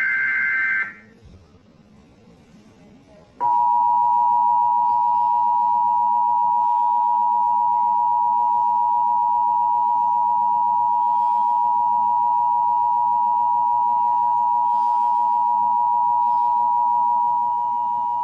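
Emergency Alert System broadcast: the last second of the screeching SAME digital header tones, then a short gap. About three and a half seconds in, the steady two-tone EAS attention signal (853 and 960 Hz together) starts and holds unbroken, announcing a severe thunderstorm warning.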